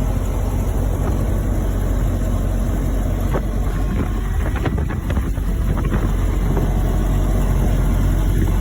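Ford Model A's four-cylinder engine and road noise while driving, a steady low rumble with wind on the microphone. A few knocks and rattles come through in the middle.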